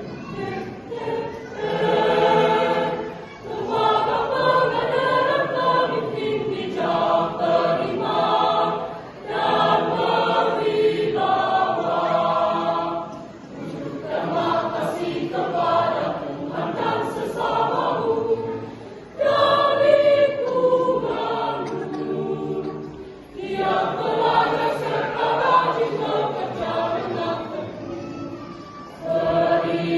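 Church choir singing a march, in phrases of a few seconds with short breaks between them.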